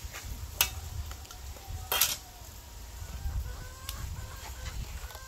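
Chickens clucking faintly in the background over a steady low rumble, with two short sharp sounds, about half a second and two seconds in.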